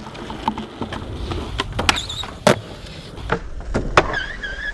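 Skateboard wheels rolling over rough concrete, with sharp clacks of the board and trucks hitting as the skater pushes and rides onto a low wooden box to grind it. Brief high squeals about two seconds in and again near the end.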